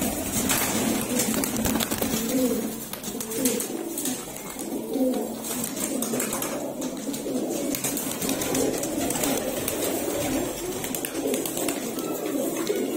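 A large flock of domestic pigeons cooing together, many voices overlapping into a steady, continuous murmur of coos.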